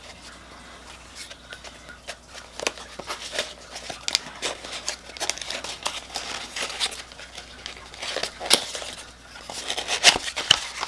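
A small cardboard box of watercolour paints being opened and unpacked by hand: rustling and crinkling of packaging, with many light clicks and taps throughout.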